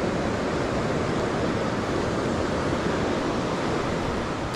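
Steady rushing of a flowing creek's current.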